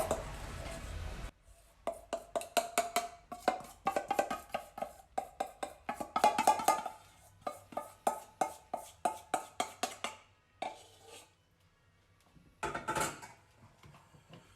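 Background music of light plucked notes, a few a second, that stops about ten seconds in.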